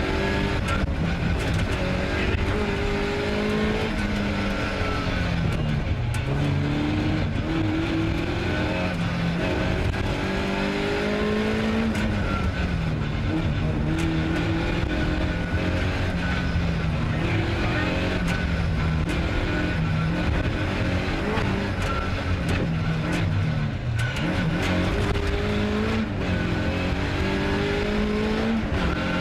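Ford Escort Mk2's 2.0-litre Pinto four-cylinder engine heard from inside the cabin, revving hard. Its pitch climbs and falls back again and again as the driver changes gear and lifts for corners.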